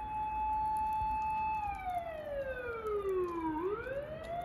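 Emergency-vehicle siren wailing: the tone holds high, then falls slowly for about two seconds and swoops back up near the end.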